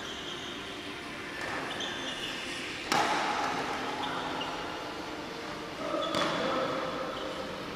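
Players' feet on a badminton court during a footwork drill: shuffling steps with short squeaks and two sharp thuds, about three and six seconds in, echoing in the hall, with voices in the background.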